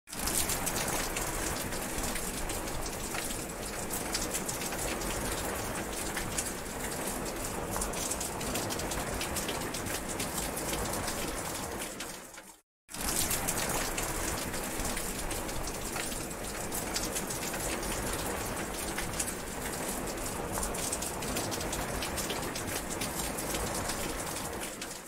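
Steady rain falling, with many separate drops heard. About halfway through it fades out to a moment of silence and comes straight back.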